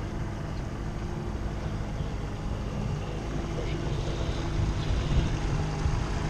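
Small Nissan outboard motor running steadily at low speed, pushing an inflatable dinghy, a little louder near the end.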